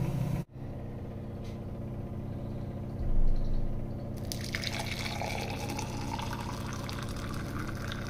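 Hot water poured from a stainless-steel saucepan into a glass mug, starting about four seconds in, with a faint pitch that rises as the mug fills. A low thump comes just before the pour, over a steady low hum.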